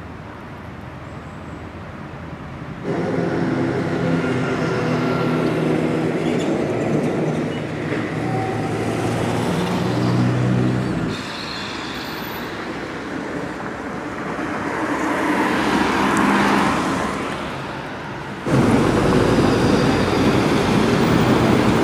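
City street traffic heard in several abruptly cut shots: a vehicle engine running with a steady hum, then a vehicle passing, its noise rising and fading away.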